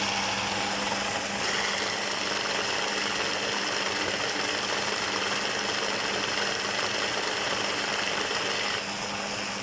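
Electric food processor motor running steadily with a constant hum, blending hot red peppers, olive oil, vinegar and spices into a harissa paste.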